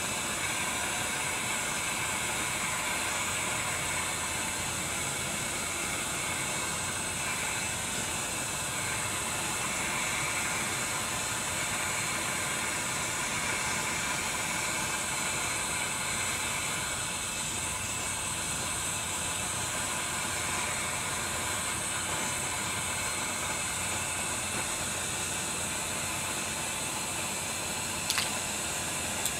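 Takei 501A kerosene pressure burner burning with a steady hiss while it warms up. A single short click near the end.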